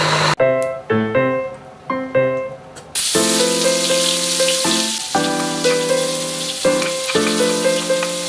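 Background music with a simple melody. About three seconds in, a steady sizzle of food frying in a hot pan starts up under the music.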